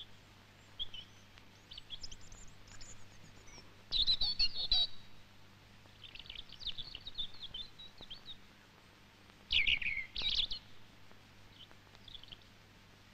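Birds chirping and singing: scattered short high calls and trills, with louder bursts of song about four seconds in and again near ten seconds, over a faint steady low hum.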